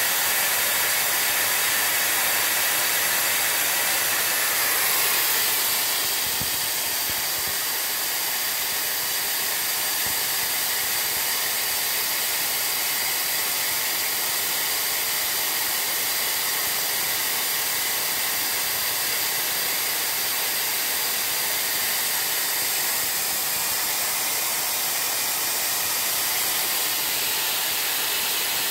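Steady hiss of a robotic laser welding cell (4 kW Laserline diode laser on a KUKA robot) welding a steel tube. The hiss shifts slightly about five seconds in.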